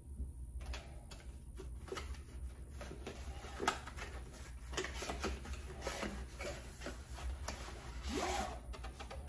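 A cardboard camera box being handled and opened: light rustling and scattered small clicks as it is turned in the hands and its pull strip and flaps are worked, with one sharper click a little under four seconds in.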